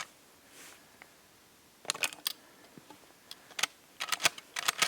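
Sharp metallic clicks and clacks of shells being pushed into an Ithaca Model 37 pump shotgun's magazine through its bottom loading port. They come in a few quick clusters, about two seconds in, then around three and a half seconds, then a busier run near the end.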